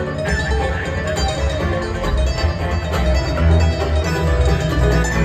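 Live bluegrass string band playing: fiddle, mandolin and acoustic guitars over plucked upright bass notes.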